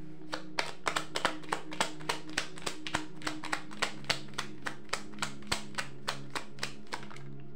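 A deck of oracle cards being shuffled by hand, with sharp card slaps about three to four a second. Soft background music plays underneath.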